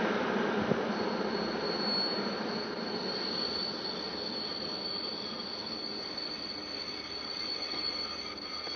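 Train running away along the track, its rumble slowly fading, with a steady high-pitched wheel squeal that comes in about a second in and holds.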